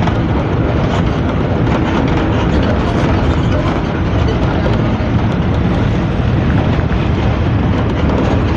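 Hino AK3-HR bus under way, heard from inside the rear of the cabin: a steady diesel engine and exhaust rumble mixed with road and body noise.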